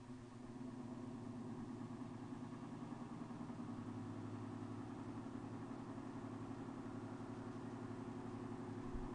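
Patton (Lasko) 16-inch oscillating fan from 1981 running, a steady motor hum with the rush of its blades. It grows louder over the first second, then holds even. The fan is a quiet-running one.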